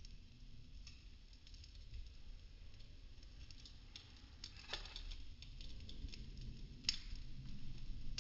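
Popsicle-stick wood burning: soft irregular crackling with scattered small ticks and a few louder pops, the loudest about halfway through and another near the end, over a low rumble.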